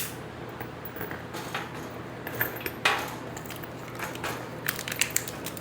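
Patio chair parts and screws clinking and knocking as the pieces are handled and lined up: scattered short clicks, the sharpest at the very start and about three seconds in, and a few quick ones close together near the end.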